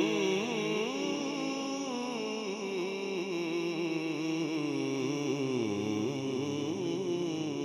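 A male naat reciter singing one long, drawn-out melodic line into a microphone, his pitch winding up and down without a break, over a faint steady low drone.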